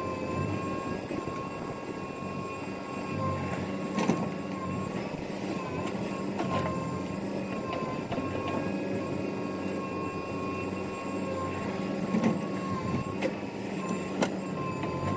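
Heavy diesel machinery running steadily with a low hum and a steady whine, broken by a few sharp knocks, the loudest about four seconds in and near the end.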